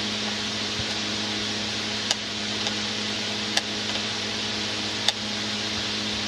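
A pet bird eating, with a few sharp clicks of its beak cracking seed, over a steady hiss and low hum.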